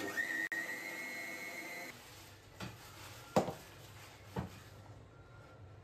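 Mixer grinder running with a steady whine for about two seconds as it grinds a coconut and chilli masala paste, then stopping. A few light clinks of kitchen utensils follow.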